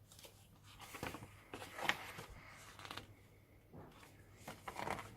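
Pages of a hardback book being turned: a few soft paper rustles and swishes.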